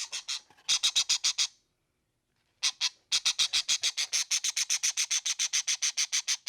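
An animal's rapid, high-pitched chattering call: strings of short, evenly spaced pulses, about eight or nine a second, broken by a second-long pause before a longer run.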